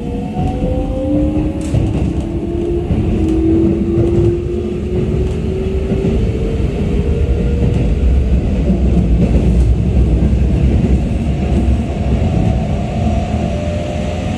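Keikyu 600 series electric train's VVVF inverter and traction motors whining and rising in pitch as the train accelerates, heard from inside the car. Under the whine runs a steady rumble of wheels on rail, loudest through the middle.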